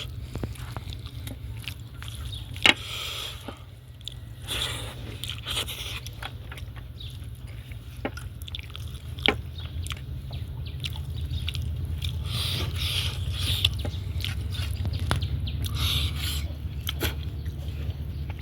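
A person chewing and biting food close to the microphone, with wet mouth noises and small clicks, and two sharp louder clicks, one a few seconds in and one near the middle. A steady low hum runs underneath.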